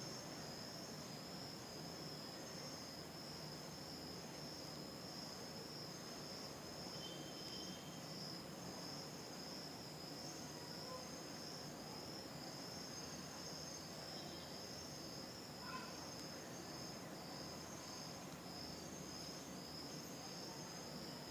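Crickets trilling faintly and steadily, a high, finely pulsing chirr that runs without a break, over low room hiss; a soft click about sixteen seconds in.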